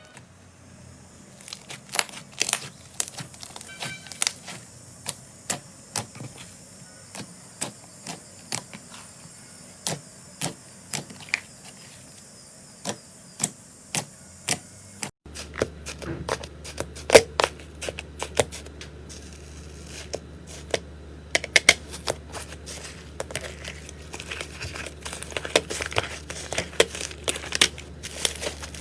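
Slime being pressed, poked and stretched by hand, giving irregular sharp sticky clicks and pops. The clicks come more densely in the second half.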